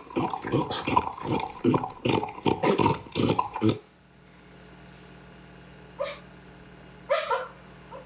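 A dog barks in a quick series of short barks, about three a second, for nearly four seconds, then stops suddenly. Two short cries follow later, one about six seconds in and one just after seven.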